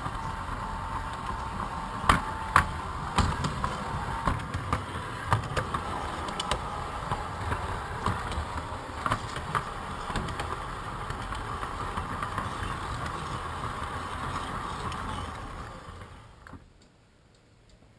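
Large-scale model train running along its track, heard from a camera riding on it: a steady running hum with scattered clicks and clacks from the wheels on the rails. Near the end the sound fades away as the train slows to a stop.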